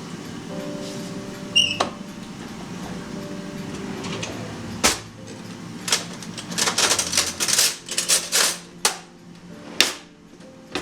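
Kitchen handling sounds: a string of knocks and clatters, thickest in a quick run in the middle, over a steady low hum.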